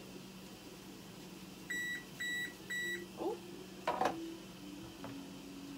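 Three short, high electronic beeps from a kitchen appliance's beeper, about half a second apart. About a second later comes a brief knock, the loudest sound, over a low steady hum.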